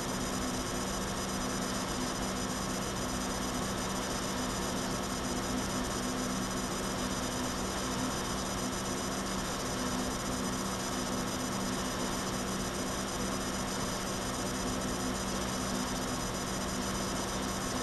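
Steady hiss with a low, constant hum underneath: background noise of a webcam's built-in microphone in a quiet room, with no other sound standing out.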